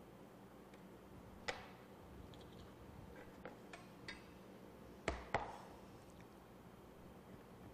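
Light knocks and taps of a kitchen knife and a metal cake cutter against a plastic cutting board while a cake is cut, a few scattered, with the loudest two close together about five seconds in.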